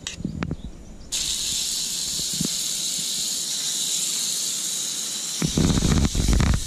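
Small bird breasts (thrush and dove) sizzling as they are laid on a hot oiled griddle. The sizzle starts suddenly about a second in and then holds steady. Near the end, low knocks and rumble from handling the pot join it.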